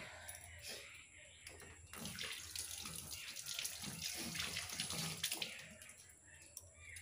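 A person blowing their nose: a long, forceful, noisy blow starting about two seconds in and lasting about four seconds, after a few softer breathing noises.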